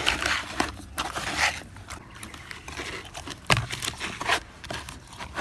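A hand rubbing salt into whole raw fish in a plastic container: irregular rubbing and scraping strokes of skin and scales against the hand and the plastic.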